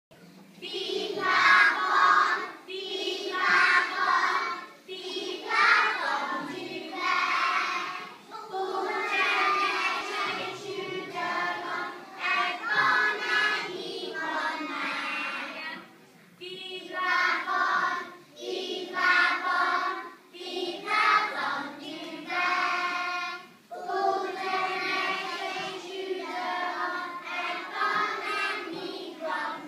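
A large group of young children singing together as a choir, in short phrases with breaths between and a brief pause about sixteen seconds in.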